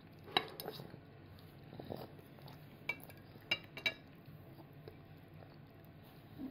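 Small spoon clinking and scraping against a bowl and plate as a toddler scoops up food to eat: a handful of short clinks, the loudest about half a second in and a close pair near four seconds.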